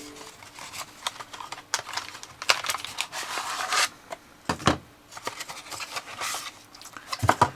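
Kit parts and packaging being handled: rustling and crinkling with scattered small clicks and scrapes, and two dull thumps, one about midway and one near the end.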